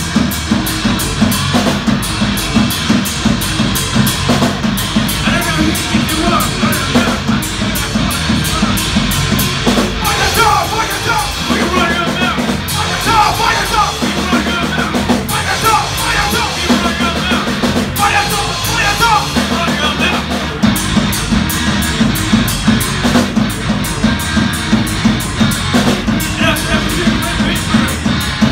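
Live rock band playing loud through amplifiers: a drum kit keeping a steady driving beat under electric bass and electric guitar, with a wavering melodic line in the middle stretch.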